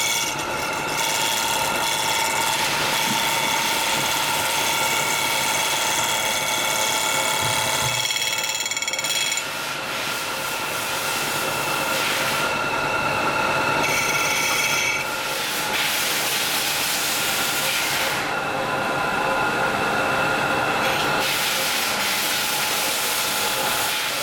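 Factory machinery running: steady high whining tones over dense grinding and rubbing noise, with the mix changing abruptly every few seconds.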